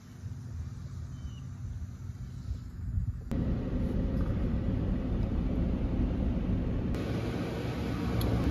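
Steady low rumble of a car heard from inside the cabin, cutting in abruptly about three seconds in after a faint outdoor background hum, with a sharp click near the end.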